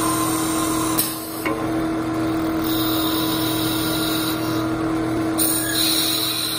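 Automatic wood lathe running: a steady motor hum with one constant tone while its tools drill into the end of a spinning wooden blank and cut its outside, with a higher hiss of cutting that comes and goes. Two sharp clicks sound about a second in.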